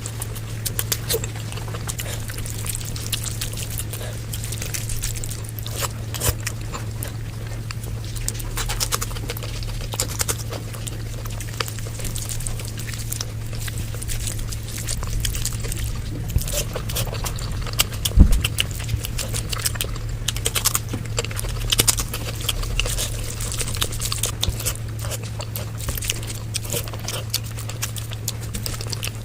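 Close-miked eating: wet chewing and mouth clicks in irregular bursts, with one sharper knock about 18 seconds in, over a steady low hum.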